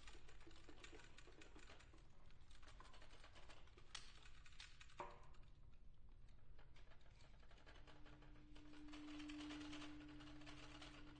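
Very soft woodwind quintet music, close to silence: faint scattered clicks and taps, then about two-thirds of the way in one instrument holds a single soft, steady low note.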